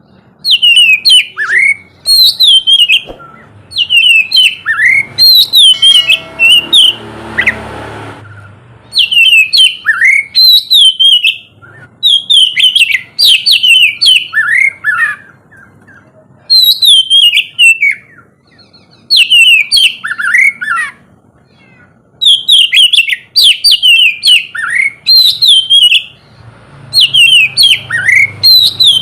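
Oriental magpie-robin (kacer) singing in repeated bursts of loud whistled phrases, each about two seconds long with short pauses between, many notes gliding downward. About seven seconds in there is a brief, harsher noise.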